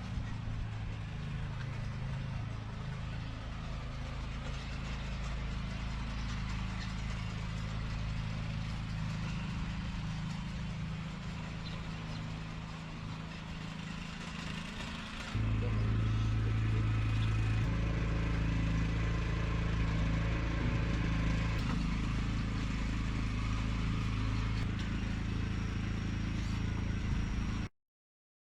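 A vehicle engine running with a steady low drone. It gets louder about halfway through and cuts off abruptly near the end.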